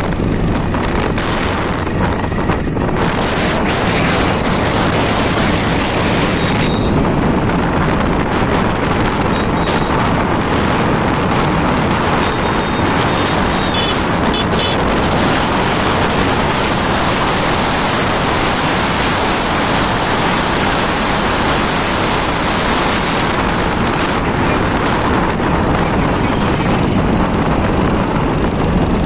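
Steady loud rush of wind on the microphone mixed with the running and road noise of a moving vehicle.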